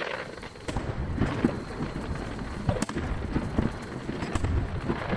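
Aerial firework shells bursting, a string of sharp bangs about a second apart over a continuous low rumble of booms and their echoes.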